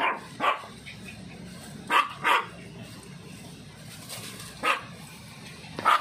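Small dogs barking, about six short barks spread out, some coming in quick pairs.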